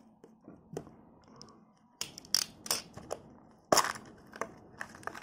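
A small utility knife scraping and slitting along the seam of a plastic capsule-toy ball, with a run of sharp plastic clicks and snaps from about two seconds in, the loudest near three and a half seconds, as the capsule is worked open.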